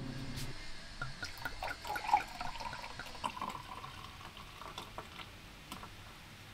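Sparkling water poured from a glass bottle into a pint glass of cordial, splashing and fizzing with many small pops and clicks, loudest about two seconds in and tailing off. A low hum stops about half a second in.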